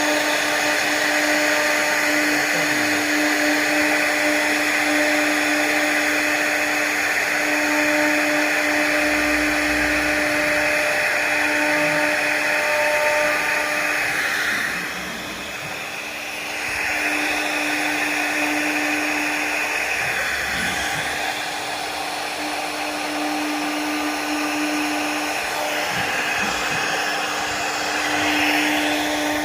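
CNC router spindle cutting a carved wooden door panel: a steady motor whine over a hiss of cutting, easing off briefly about halfway through before picking up again.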